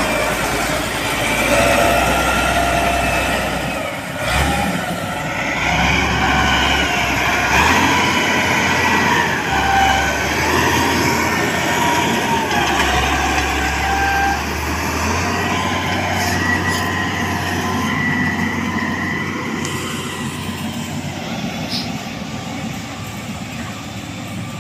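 Mitsubishi MG330 motor grader's diesel engine running under load as it grades a dirt road, a heavy steady rumble with high wavering tones above it. It fades somewhat over the last few seconds as the grader moves away.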